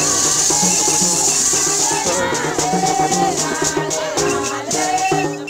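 Group singing with a shaken rattle. The rattle's steady hiss breaks into sharp rhythmic shakes about two seconds in.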